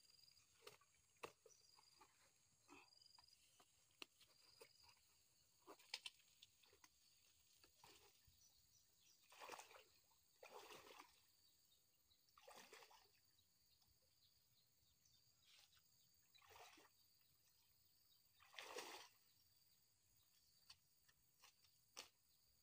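Faint footsteps wading through a shallow ditch: about five sloshing splashes in the middle of the stretch. Before them come small clicks and rustles of footsteps in grass.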